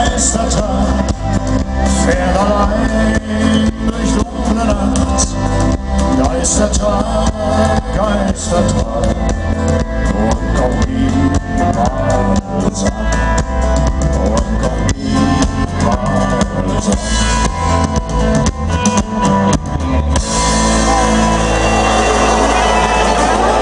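A live country band plays an instrumental passage with drum kit and guitars, heard loud through the crowd's PA sound. About twenty seconds in, the drumming stops and a steady held chord takes over.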